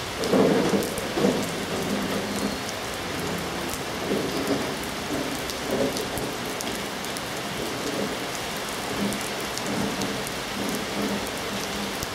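Steady rain falling: a constant hiss with many scattered sharp drop ticks and irregular duller patters, the heaviest in the first second or so.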